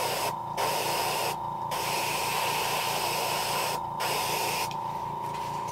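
Airbrush spraying paint through a stencil onto a fishing lure blank, laying on a coat in hissing passes broken by four short pauses where the trigger is let off. A steady hum with a fast low pulsing runs underneath, and the spray and hum cut off together near the end.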